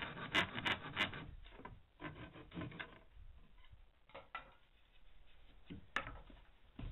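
Hand saw cutting through a wooden board: quick push strokes about three a second, growing lighter after the first second as the cut is finished. Then quieter wood handling, with a sharp knock about six seconds in.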